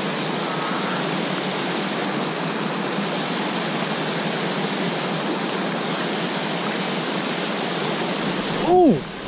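Small waterfall pouring into a plunge pool: a steady, even rush of falling water. Near the end a man gives a short, loud "Ooh!"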